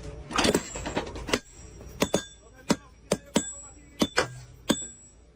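A series of sharp metallic strikes at an irregular pace, about two a second, each ringing briefly with a bright tone.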